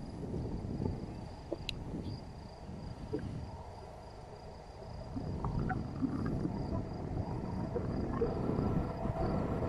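A distant freight train approaching: a low rumble that swells in the second half as rail noise from the wheels comes through. A faint steady insect trill and a few short bird chirps sound over it.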